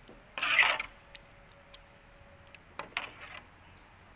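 A metal spatula stirring sauce in a wok, scraping against the pan twice: a loud scrape about half a second in and a weaker one about three seconds in, with a few light clicks between.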